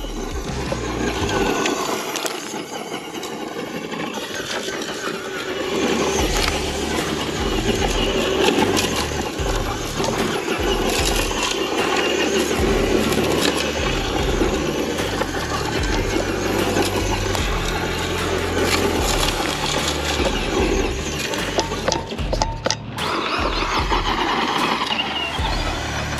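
Background music over an electric RC truck driving in loose sand: its motor running and its tyres spinning and throwing sand.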